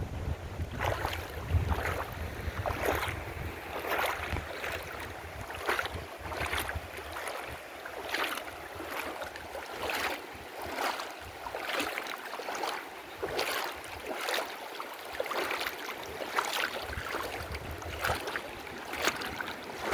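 Legs wading through river water, a splash with each step about every three-quarters of a second. Wind rumbles on the microphone during the first several seconds.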